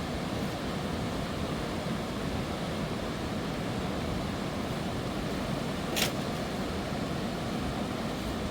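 Steady rushing roar of a fast mountain river running over rocks, with a single sharp click about six seconds in.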